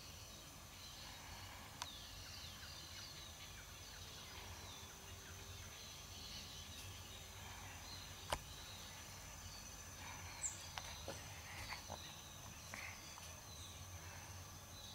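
Faint outdoor ambience: scattered small bird chirps over a steady high-pitched hum, with a few sharp clicks, the loudest about eight seconds in.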